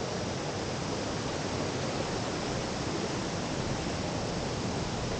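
Rushing river water: a steady, even hiss with no breaks.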